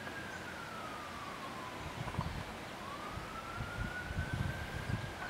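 An emergency vehicle's siren wailing: its pitch falls slowly, rises again over a couple of seconds, and starts to fall once more near the end. Low bumps sound underneath.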